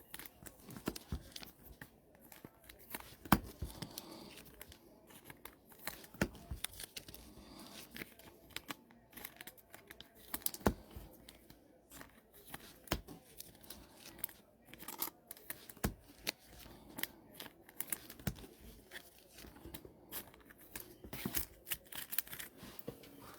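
A sealed trading-card hobby box being cut and torn open by hand: packaging tearing and crinkling, with many scattered clicks and scrapes of handling.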